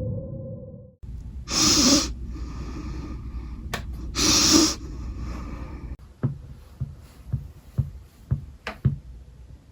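Background music fading out, then two loud, heavy breaths a few seconds apart, followed by a series of soft footsteps at a walking pace, about two a second.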